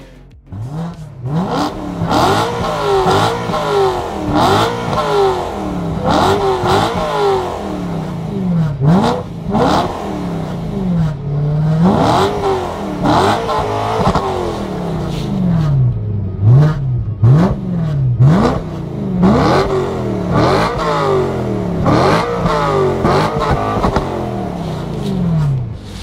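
BMW M3 E90 sedan's S65 V8 revved over and over while the car stands still, each blip rising sharply in pitch and falling back every second or two through its quad-tip exhaust.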